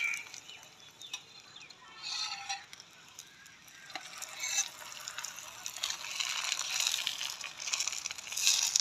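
Aloo paratha sizzling as it fries on a flat griddle (tawa), with a few clicks and scrapes of the spatula and tongs. The sizzle grows louder in the second half.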